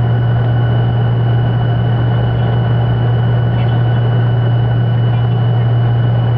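Cabin noise of a Tupolev Tu-134B-3 rolling out on the runway after touchdown: its rear-mounted Soloviev D-30 turbofans give a steady low drone with a thin high whine over a rushing rumble.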